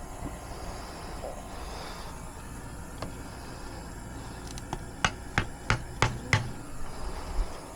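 A hammer knocking a wooden stake: five sharp blows in quick succession, about three a second, with a few lighter taps before and after.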